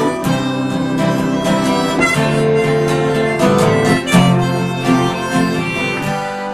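Instrumental break of a folk song: harmonica playing held melody notes over strummed acoustic guitar.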